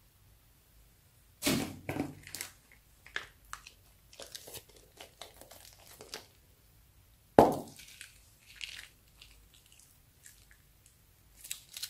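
Thin plastic bags of liquid crinkling and crackling as they are squeezed and emptied. The loudest crackles come about a second and a half in and again about seven seconds in, with fainter rustling between.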